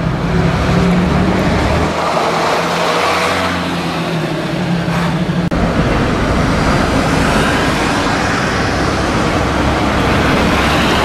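Diesel route bus (K-RT225AA) running with a steady low engine hum as it moves along the street. After a cut about five and a half seconds in, a second diesel route bus (P-RJ172BA) drives close past, its engine and road noise building as it nears.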